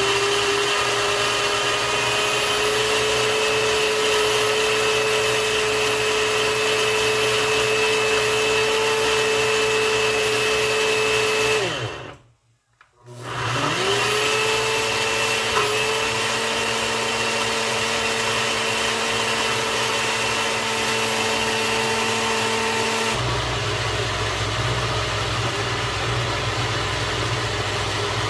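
Personal countertop blender puréeing chunks of peeled green plantain: the motor runs with a steady whine, stops for about a second and a half near the middle, then starts again with its whine rising as it spins up. Its sound changes for the last few seconds before it cuts off.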